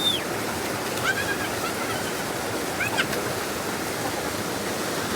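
Steady rushing of a waterfall, an even wash of falling water. A few brief high-pitched calls sound over it, near the start, about a second in and about three seconds in.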